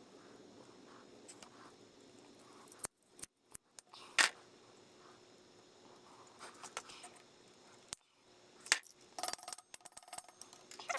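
Small metallic clicks and snips from hand tools working safety wire on a motorcycle chain's master link clip. One sharp snip comes about four seconds in, and a quick run of small clicks near the end.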